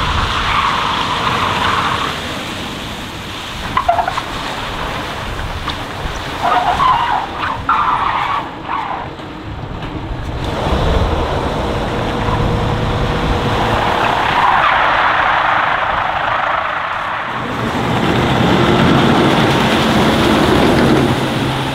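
Tatra truck driving on a wet skid pad: engine running under a noisy wash of tyres and water, with short squeals about four and seven seconds in. Near the end a steady low engine note comes up louder.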